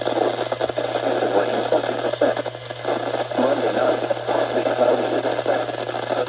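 Weather radio reception full of static over a steady low hum, with a garbled voice buried in the noise and too unclear to make out.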